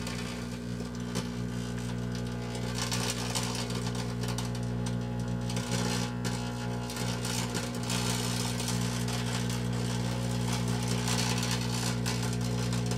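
Kenmore microwave oven running with a steady electrical hum, with irregular crackling and hissing over it that swells and fades, from a tank firework burning inside after failing to explode.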